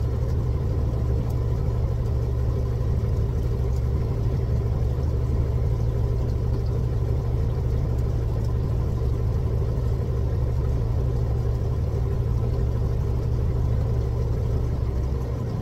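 Fishing boat's engine idling steadily, an even low hum with no change in speed.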